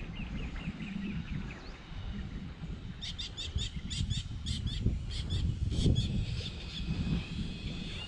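A bird calling in rapid series of short, high chirps: a brief run of notes at the start, then a faster, louder string from about three seconds in. A steady low rumble of wind and water lies underneath.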